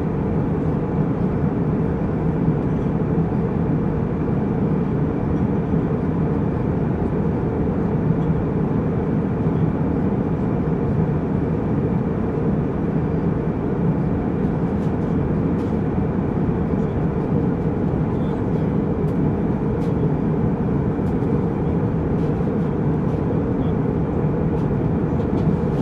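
Jet airliner cabin noise in flight: a steady low rumble of engines and rushing air with a faint high tone, and a few faint ticks in the second half.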